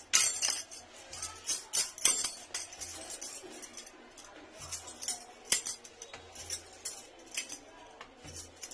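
Bangles on a wrist clinking irregularly as a hand sweeps across a stone countertop: many light, sharp chinks, thickest in the first couple of seconds.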